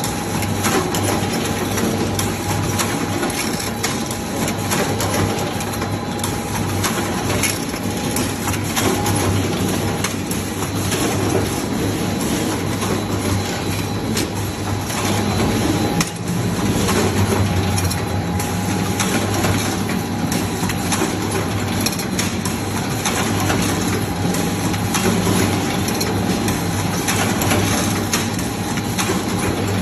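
Gluten processing machinery running: a steady motor hum under a continual clatter and rattle of moving parts, with a brief change about halfway through.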